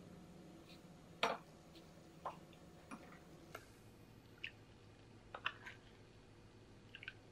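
Metal spoon clinking lightly against a small glass bowl, a scattering of single sharp taps, as cornstarch is stirred into a thin soy-vinegar sauce.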